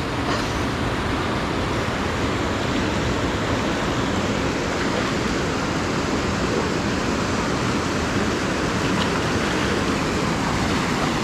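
Fast-flowing creek running high with snowmelt, a steady rush of water with no pauses.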